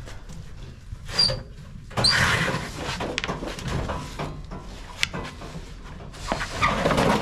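The sheet-metal cabinet of an old horizontal gas furnace being dragged out over wooden boards, scraping and screeching. There is a short screech about a second in, a longer, louder scrape from about two seconds in, and another near the end, with a few knocks in between.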